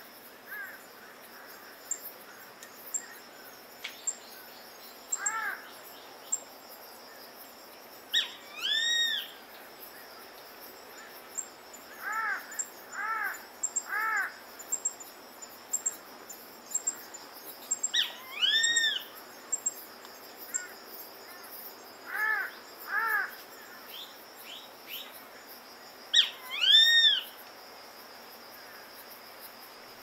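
Grey-faced buzzard giving its two-part 'pik-kwee' call three times, about nine seconds apart: a short note and then a longer note that rises and falls. Between the calls come softer, lower calls in groups of two or three, over a steady high chirring of insects.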